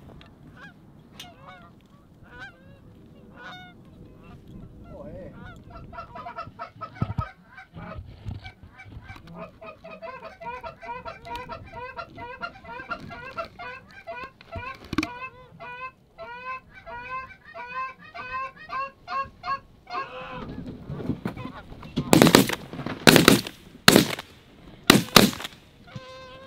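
A flock of Canada geese honking over and over, the calls thickening through the middle. In the last few seconds comes a rapid volley of shotgun blasts, about six shots fired by several hunters.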